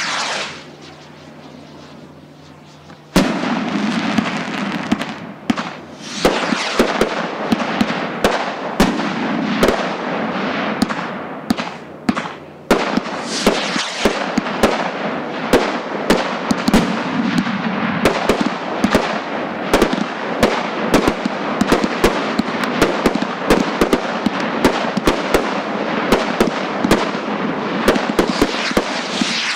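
Fireworks going off. A short loud swell at the start is followed by a quieter stretch. About three seconds in, a dense, continuous run of sharp bangs over steady crackling starts suddenly and keeps going.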